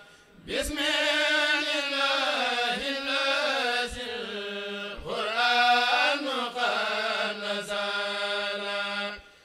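A kurel of male singers chanting a Mouride khassida: long drawn-out melodic phrases. A breath break falls at the start, a new phrase begins about five seconds in, and another break comes just before the end.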